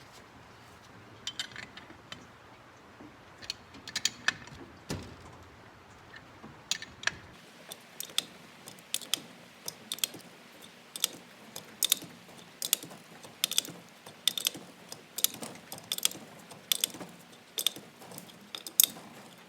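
Metal tools and parts clinking, then a ratchet wrench clicking in steady strokes about every three-quarters of a second from about seven seconds in, tightening a nut on a puller bolt to draw a part out of a Compact A overdrive.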